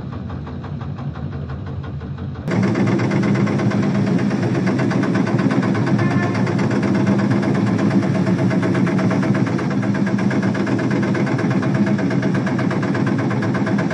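Bakery conveyor machinery running with a steady mechanical hum and dense rattle, stepping up suddenly and getting louder about two and a half seconds in.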